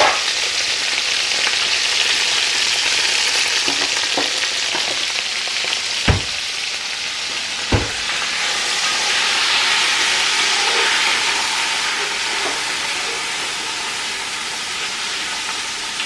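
Potatoes, sliced sausage and onions sizzling in oil in a cast iron skillet, stirred with a wooden spoon. Two sharp knocks about six and eight seconds in.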